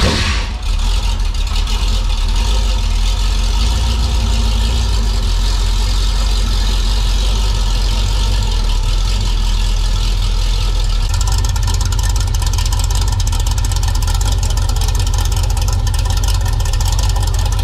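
GM 602 crate small-block V8 in a dirt-track modified race car, idling steadily.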